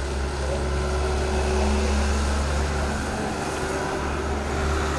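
Steady low rumble with an even hiss over it, and no distinct events: continuous outdoor background noise.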